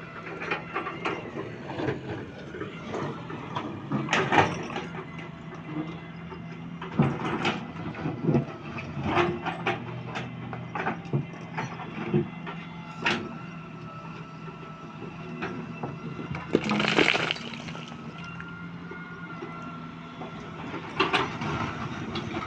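Heavy construction machine, likely the crane, with its engine running steadily under repeated knocks and clanks from the work. There is a short hiss about three-quarters of the way through.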